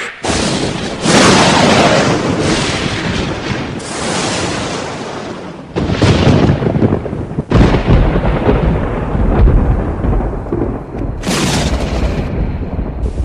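Loud thunder and lightning-crack sound effects, rumbling sections spliced one after another, several starting abruptly.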